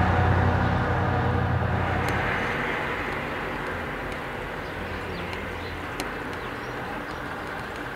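A motor vehicle's engine hum fades away over the first couple of seconds, leaving steady outdoor background noise with one sharp click about six seconds in.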